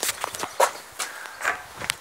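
Footsteps of a person walking, about two steps a second.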